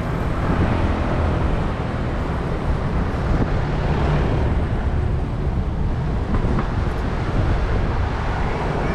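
Steady road traffic noise: cars running on the street, a continuous rumble without a break.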